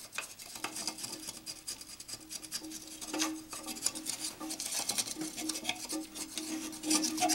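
Fingers scraping and rubbing at a plastic toilet flush valve and its rubber seal, a steady run of short scratchy strokes, cleaning off buildup so the seal will stop leaking.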